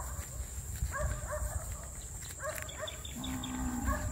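Animal calls: short pitched calls, repeated in pairs about once a second, then one longer, lower call near the end, over footsteps on a dirt path.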